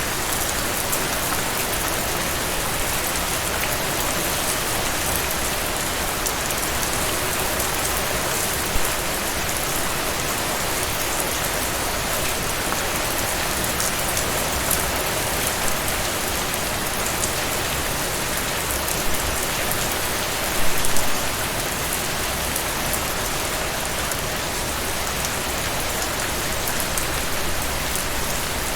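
Steady heavy rainfall, with dense patter of drops striking a surface and a few louder splashes, one cluster about two-thirds of the way through.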